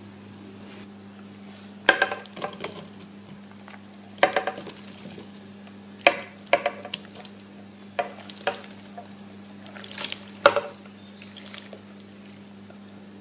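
Glass bowl knocking and scraping against a nonstick pot as chopped strawberries are tipped and scraped into it, in short clusters of sharp clinks about every two seconds. A steady low hum runs underneath.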